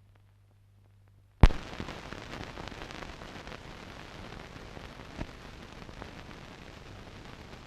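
Hiss and crackle of an old optical film soundtrack, which starts with a sharp click about a second and a half in and carries on with scattered pops.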